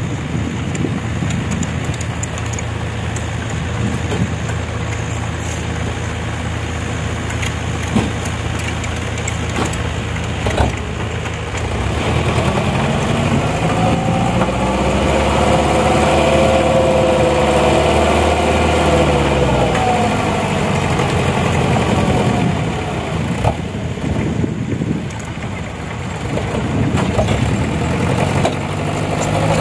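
Mitsubishi Canter dump truck's diesel engine idling, then revved for several seconds midway, its pitch rising and falling, and revved again near the end, as the hydraulic hoist raises the loaded tipper bed. A couple of sharp knocks sound in the first half.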